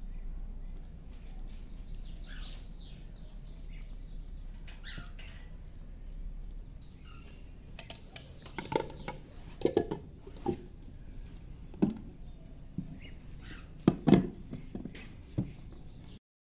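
Scattered knocks and clinks of a glass food-chopper bowl being handled as its lid and electric motor head are set in place, loudest in the second half; faint bird chirps in the first half.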